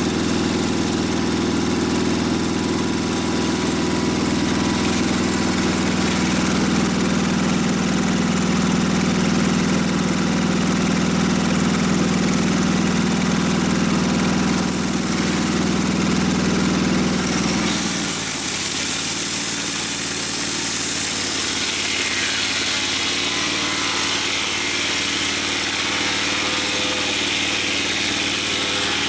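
Sawmill engine running steadily. About two-thirds of the way through, the low engine note drops away and a brighter, hissing sound takes over.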